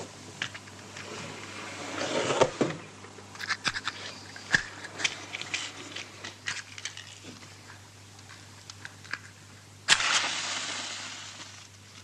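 A matchbox handled and shaken, its matches rattling and scraping inside with scattered sharp clicks. About ten seconds in, a match is struck and flares with a hiss that fades over a couple of seconds, over a steady low hum.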